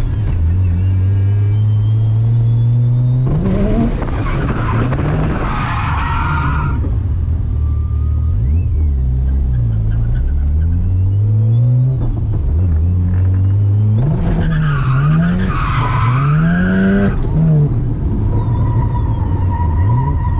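Mazda FC RX-7's turbocharged 13B rotary engine revving up and falling back repeatedly through a drift run. There are two stretches of tyre squeal, one about three seconds in and another about fourteen seconds in, each lasting a few seconds.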